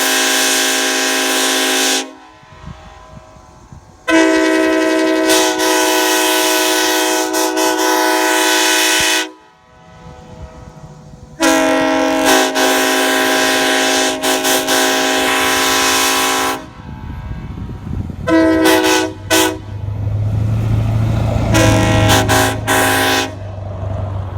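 Nathan Airchime K5LA and K5LLA five-chime train horns blown in turn as a multi-note chord. There are three long blasts of about five seconds each, with a gap of a couple of seconds between them, then a few short toots near the end. The K5LLA, with its 1L bell in place of the 5 bell, has the deeper tone of the two.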